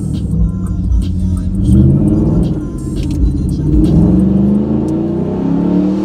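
Car engine revving and accelerating, its pitch climbing several times, over loud music.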